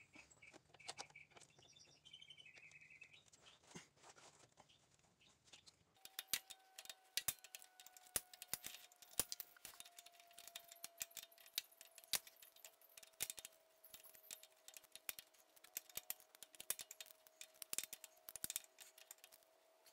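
Faint, irregular clicks and taps of hand tools and metal hose fittings being worked on the power steering rack, denser after about six seconds. Faint bird chirps in the first few seconds.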